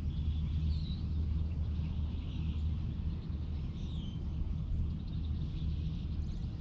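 Outdoor ambience: a steady low rumble with birds chirping briefly a few times.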